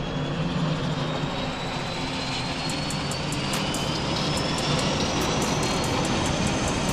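Light airplane engine starting up and running up, with a whine rising steadily in pitch. Fast, sharp ticking comes in from about the middle on.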